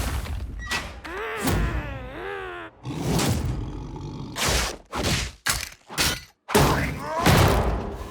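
Cartoon slapstick sound effects: a wobbling, wavering tone about a second in, then a run of heavy thuds and crashes, about seven strikes in quick succession.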